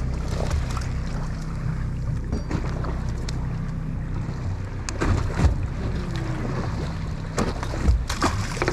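Boat at sea: a steady low engine hum with water sloshing against the hull. Several sharp knocks come about five seconds in and again near the end.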